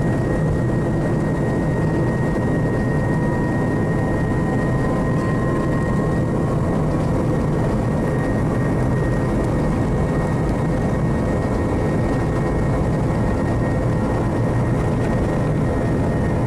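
Airbus A321 jet engines at takeoff power, heard from inside the passenger cabin: a steady, even roar with a faint high tone held above it.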